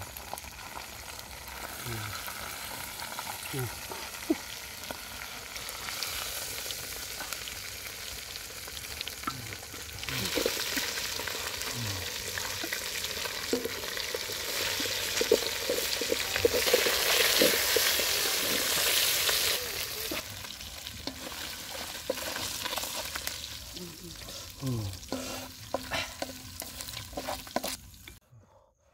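Fish and chillies sizzling and simmering in a blackened metal pot over a wood fire, with a wooden spoon knocking and scraping against the pot as the fish is lifted out. The hiss grows louder about ten seconds in and eases off after twenty.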